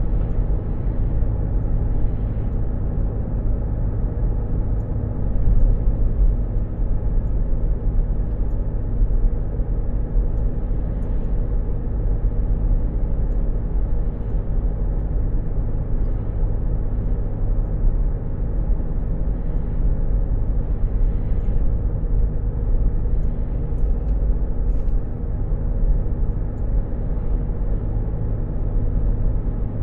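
Steady low hum of a car's engine and tyres heard from inside the cabin, with a few faint, soft knocks scattered through it.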